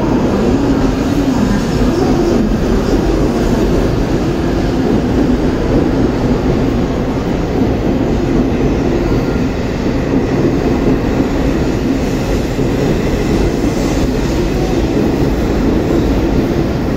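Shinkansen train moving slowly alongside the platform: a steady loud rumble with a wavering hum.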